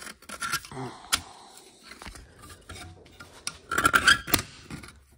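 Metal scraping and clanking as the cut, old wear ring of a Kawasaki STX 900 jet pump is wrenched and pried against the pump housing: the ring is still seized in the housing, which the owner suspects is corrosion. Scattered scrapes and clicks, with a loud burst of scraping and clanking about four seconds in.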